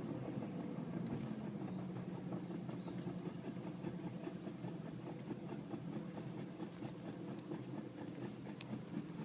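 Jeep Liberty rolling along with a regular metallic clicking over the engine hum. The clicking keeps time with the wheels' turning, not with engine speed, which points to a fault in the wheel or driveline rather than the engine.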